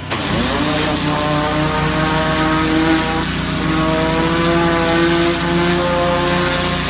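A homemade high-pressure washer, with a Chinese Honda GX-clone petrol engine, goes under load as the lance opens. Just after the start a loud, steady hiss of the high-pressure water jet sets in. The engine note drops as the spray begins, then climbs slowly while it pulls the pump.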